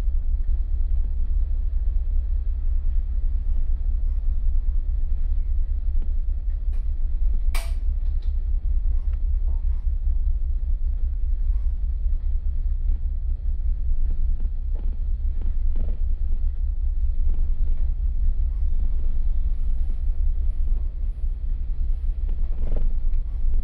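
Wind buffeting the microphone over the steady low hum of a car ferry's engines under way, with one sharp click about seven seconds in.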